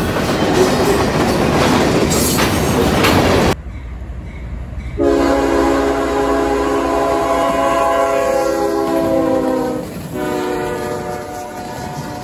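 Freight cars of a long manifest train rolling past with steady wheel-on-rail noise, which cuts off suddenly after about three and a half seconds. Then a diesel locomotive's air horn sounds several tones at once, in one long blast of about five seconds and a second, shorter blast near the end.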